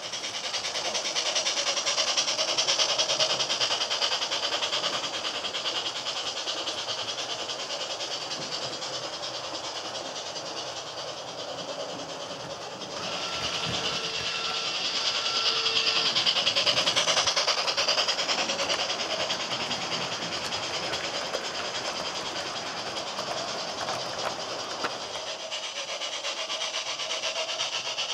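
HO-scale model trains running on a layout: a steady rolling and whirring of wheels and motors on the track with fine rapid clicking. The sound shifts about halfway through and again near the end, and a brief steady two-note tone, like a sound decoder's horn, sounds just after the halfway point.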